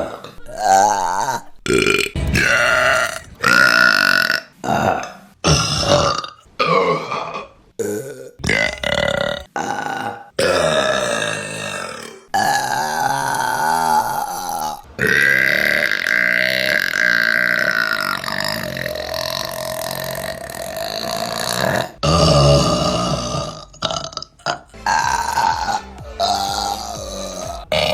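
A run of women's burps: many short burps one after another, then longer drawn-out ones, the longest lasting about seven seconds, then more short burps near the end.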